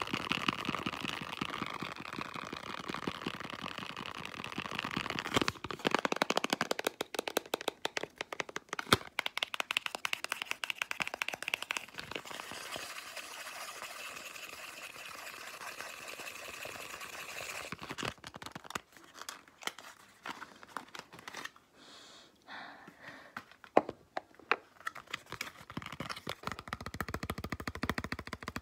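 Fingernails tapping and scratching fast on a small cardboard soap box. The sound is a continuous scratchy run at first, then dense rapid taps, and from about two-thirds of the way in it thins to scattered, quieter taps.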